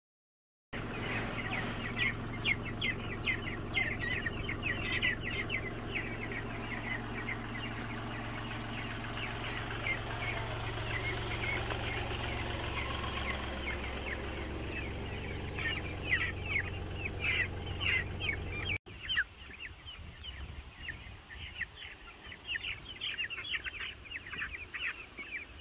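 A flock of two-week-old meat chicks peeping constantly in short, high, falling peeps, over the steady low hum of a compact tractor's engine. About two-thirds of the way through the hum cuts out and the peeping goes on, fainter.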